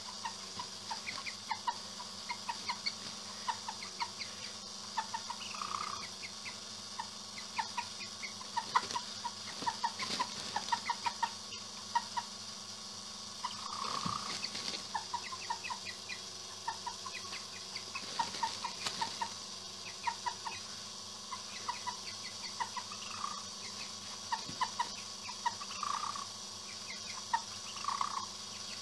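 White broiler hens clucking in a steady run of short clucks, several a second, broken now and then by a longer drawn-out note.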